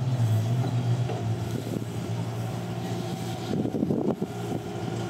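Engine of an off-road trial buggy running at low revs as it crawls over a steep dirt slope, a steady low note that is strongest in the first second.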